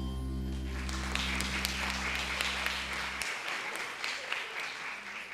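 Audience applauding as the final handbell chord rings out, the chord cut off about three seconds in while the clapping goes on.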